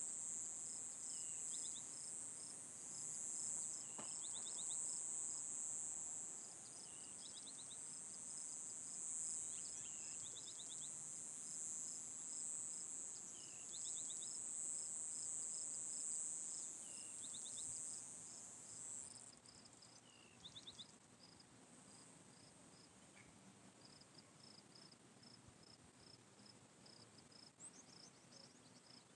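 A steady high-pitched insect chorus that cuts off suddenly about two-thirds of the way through, over a faster row of short high chirps. A bird repeats a short call of a few rapid notes with a lower falling note every few seconds.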